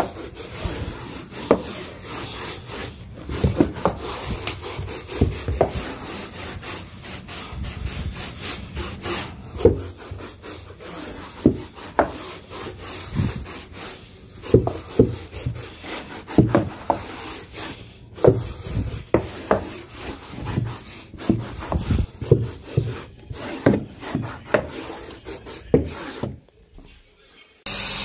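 Round bristle brush scrubbing stair carpet in quick back-and-forth strokes, rasping against the pile, roughly one or two strokes a second. The scrubbing stops near the end.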